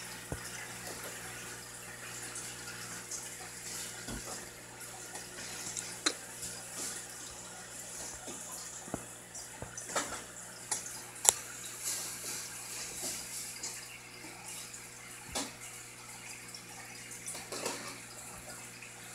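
Aquarium water running steadily, like a filter's outflow trickling into the tank, over a faint steady hum. Scattered sharp little ticks come through it, the loudest about eleven seconds in.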